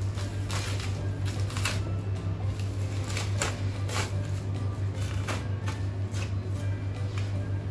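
Butcher's knife cutting through a beef forequarter, separating the brisket: short scratchy strokes of the blade through meat and fat, every second or so, over a steady low hum.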